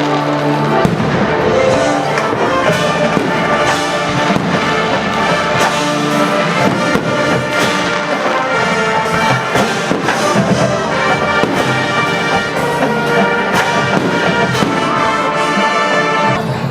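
Brass music playing, full chords of held notes, with several fireworks bangs going off over it.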